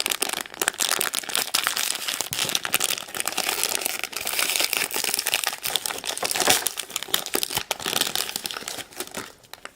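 Crinkly blind-bag toy packaging being torn and rustled open by hand, with a steady run of crackles that dies away near the end.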